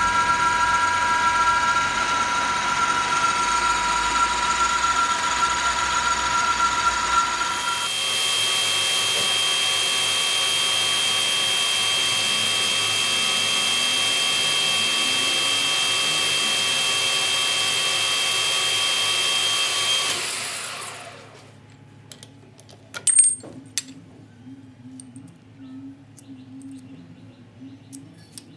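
Metal lathe running with a steady whine as a small steel shaft spins in the chuck. The whine changes pitch about eight seconds in, and the lathe spins down after about twenty seconds. Afterwards come light clicks and one sharp metallic knock.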